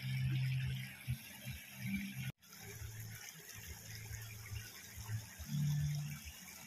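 Water of a shallow stream running and splashing around people wading and lifting a brush-pile fish trap and net. A low hum comes and goes, loudest near the start and again near the end.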